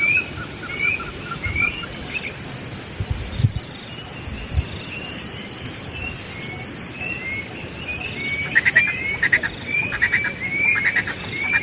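Wild birds calling: one bird repeats a short, curving whistled note about twice a second, and a louder, raspy repeated call joins about eight seconds in. A steady high-pitched hum runs underneath, with a few brief low thuds near the middle.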